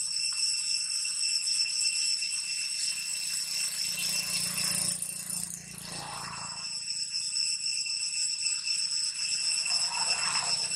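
Steady, shrill buzzing of insects (a cicada-like drone): one high tone with overtones, unchanging throughout. A few soft dry rustles from a plant stalk being handled come and go over it.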